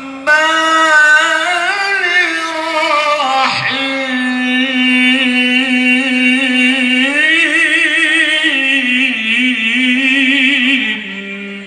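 A single voice chanting Arabic in long, held melodic phrases with wavering ornaments, in the style of Qur'anic recitation. The voice drops away shortly before the end.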